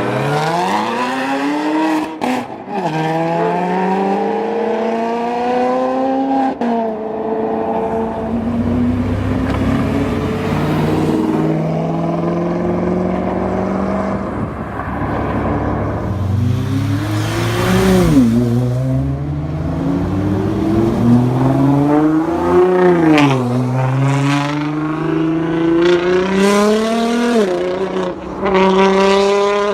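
Supercar engines accelerating hard, one after another, their pitch climbing through each gear and dropping sharply at the shifts, with a deeper steady rumble in between.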